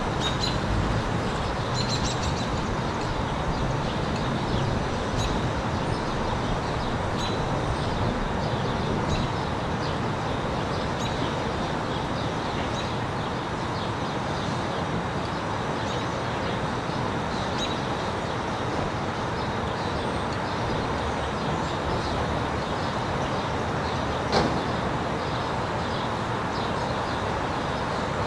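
Steady rush of wind and road noise from a moving ride along a street, with birds chirping faintly now and then, and a single sharp click near the end.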